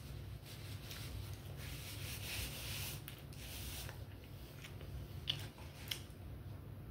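Rustling and rubbing of paper food wrappers as takeout food is handled and eaten, with two short sharp clicks about half a second apart near the end.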